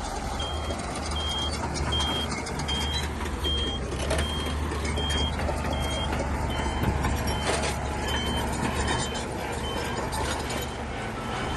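A heavy machine's reversing alarm beeping steadily, a little more than once a second, over the low running of a diesel engine.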